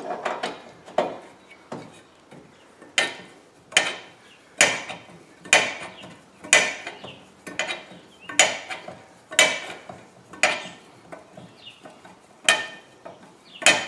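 Car's scissor jack being lowered by hand-cranking its supplied crank rod: sharp metallic clanks, about one a second, as the handle goes round.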